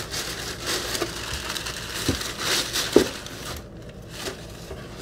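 Thin white wrapping paper rustling and crinkling as it is pulled off a pair of new shoes. The sharpest crackles come about three seconds in, then it quiets.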